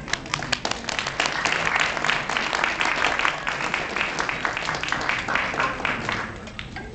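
Audience applause: many hands clapping at once, starting as the music stops and dying away near the end.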